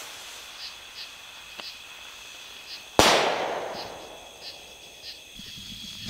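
Vektor XL firework rocket bursting in the air: one sharp bang about three seconds in, its report fading away over a second or two.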